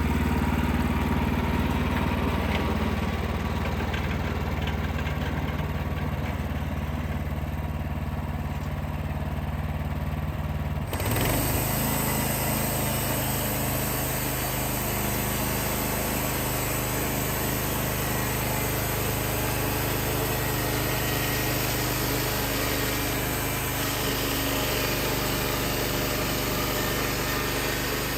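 The 14 hp engine of a portable band sawmill running steadily. About eleven seconds in the sound changes abruptly and a high hiss joins the engine.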